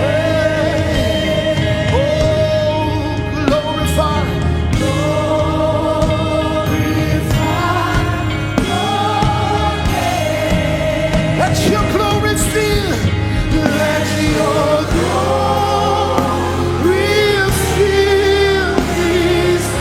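Live gospel worship music: sung, sustained vocal lines with a choir or congregation over a steady keyboard and band accompaniment.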